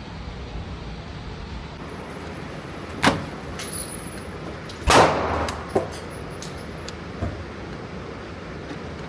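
Gunshots: four sharp reports over a steady low background rumble. One comes about three seconds in, the loudest just before five seconds with a short echoing tail, a softer one soon after, and a last faint one about seven seconds in.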